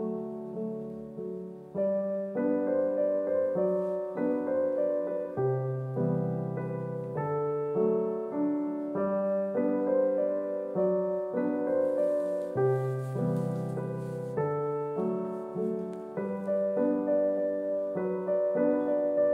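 Background piano music: a gentle, evenly paced melody over low notes that change every couple of seconds.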